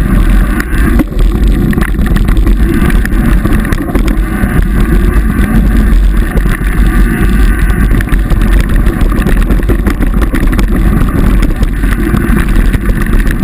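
Mountain bike rolling fast down a dirt singletrack, heard through a bike-mounted action camera: steady heavy wind rush and rumble on the microphone, with light rattles and knocks from the bike over the rough trail.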